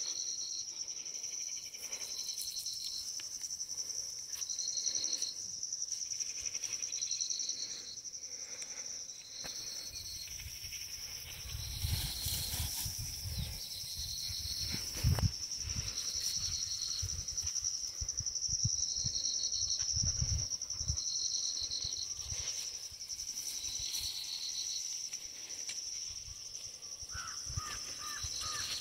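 Insects trilling in a steady high-pitched drone, with a short chirp repeating about every second and a half. Low thumps come and go through the middle, and a quick run of short calls sounds near the end.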